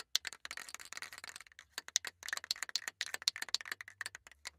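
Rapid keyboard typing clicks in quick irregular runs, with a brief lull about a second and a half in: a typing sound effect for on-screen text being typed out.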